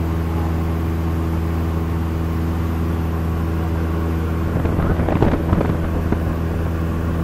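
Cessna 172's piston engine and propeller droning steadily at cruise, heard from inside the cabin, with a brief louder, wavering sound about five seconds in.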